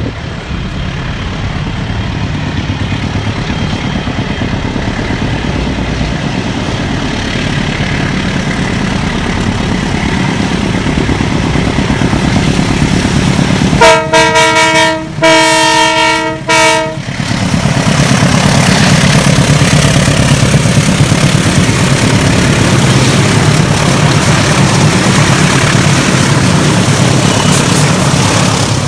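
Transnet diesel-electric freight locomotives working hard up a grade, their engine rumble growing louder as the train approaches. About halfway through, the locomotive horn sounds two blasts of a several-tone chord, the second a little longer than the first.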